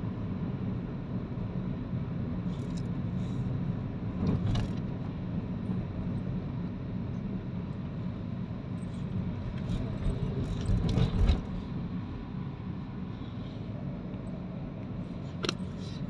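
Steady low road and engine rumble heard inside a moving car's cabin, with a few short knocks, and a louder cluster of knocks and a thump about eleven seconds in.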